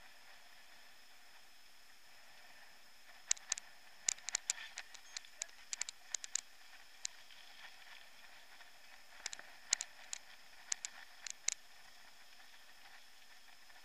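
Mountain bike rattling over rough ground, heard from the rider's mount: two clusters of sharp clicks and knocks, one from about three to six seconds in and another from about nine to eleven seconds, over a steady faint hiss.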